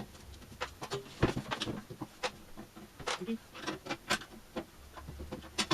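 Hand tools and a metal instrument case being worked on a bench: irregular clicks, taps and scrapes from a screwdriver, screws and the cover of an RF signal generator being taken off, with a few short squeaks.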